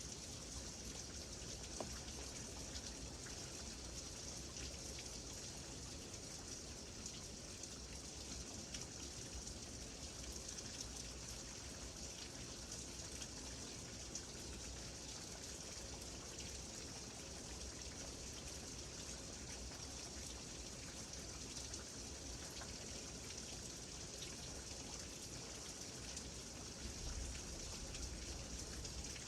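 Steady rain falling, a continuous hiss of drops with fine patters on a surface and a low rumble underneath.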